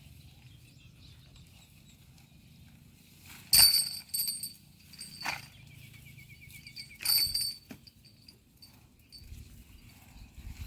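A few sharp clinks with a ringing top, the loudest about a third of the way in and another near the middle, over a faint low rumble.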